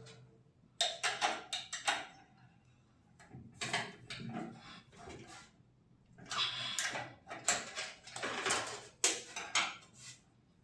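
Irregular clatter and clicks of small hard objects being handled, in several bursts with rustling between short quiet gaps.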